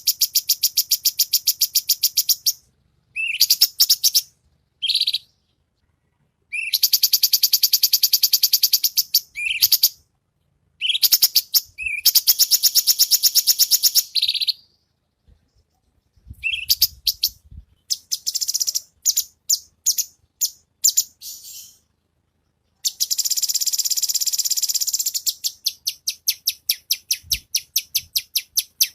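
Cucak cungkok singing in long, very rapid, high-pitched trills, the dense run of sharp notes that keepers call "tembakan rapat". The trills come in bursts of a second or more with short breaks between them. Near the end they give way to separate sharp notes about four a second.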